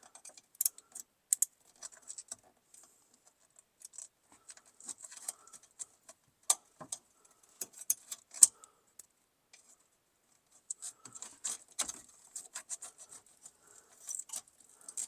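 Irregular light clicks and small metallic rattles of a hand tool working the turn signal switch's wires and terminals loose in the steering column, with a pause of about a second and a half some two-thirds of the way through.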